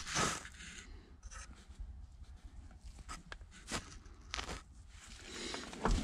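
Scattered light clicks and rustles of someone moving about and handling things, with short breathy rushes of noise right at the start and again about four and a half seconds in.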